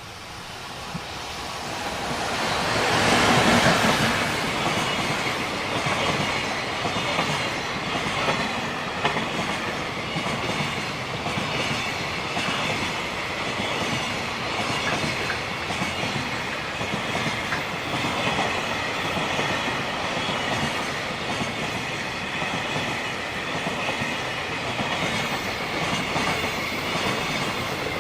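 Freight train passing close by: the locomotive's approach builds to the loudest point about three to four seconds in, then a long steady run of freight wagons rolls past with a faint high-pitched wheel squeal.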